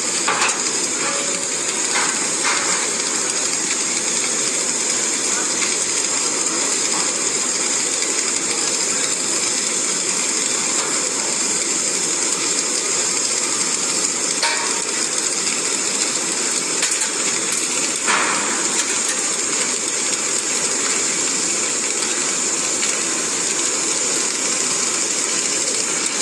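Submerged arc welding machine running: a steady hissing, humming workshop noise, with a few short clicks.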